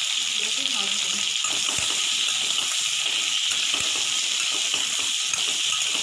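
Pointed gourd (potol) pieces shallow-frying in hot oil in a steel kadai: a steady, even sizzle.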